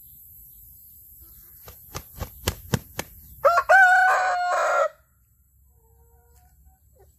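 Rooster crowing once: a couple of short rising notes, then a held note that breaks off after about a second and a half. It is preceded by a quick run of about five sharp claps.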